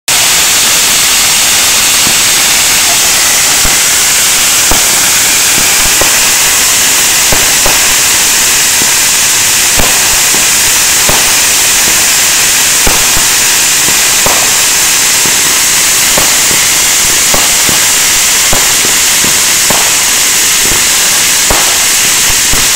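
Fireworks: a ground fountain spraying sparks with a loud, steady hiss, broken by irregular sharp pops and cracks from small aerial bursts roughly every second or two.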